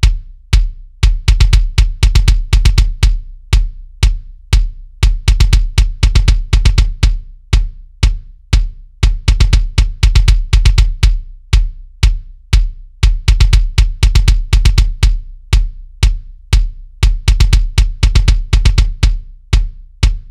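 A drum-kit groove of kick and snare hits, played back through an SSL channel compressor set to a 2:1 ratio with a 300 ms release. The strong kick and the snare hits repeat several times a second throughout.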